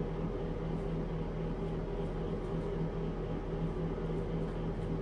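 A steady low mechanical hum with a few fixed tones, with faint light ticks above it.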